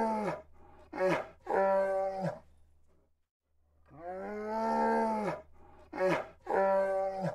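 A bear's drawn-out, pitched moaning call, each long call followed by two shorter ones. The same three-call sequence comes twice, about four and a half seconds apart.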